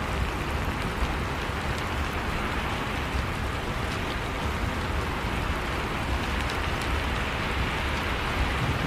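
Heavy rain falling steadily: a dense, even hiss with scattered individual drops tapping through it.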